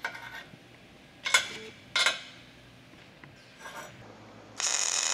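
Steel parts clinking against a steel welding table as they are set in a fixture, three times, then a short MIG weld: a steady, loud hiss about a second long, starting about four and a half seconds in.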